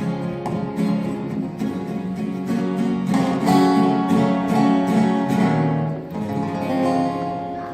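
Acoustic guitar strummed and picked, playing the closing instrumental of a folk song, ending on a held chord that rings out.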